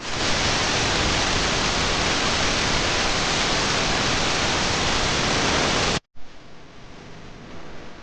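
A loud, steady hiss of noise with no tone in it, starting abruptly and cut off sharply about six seconds in.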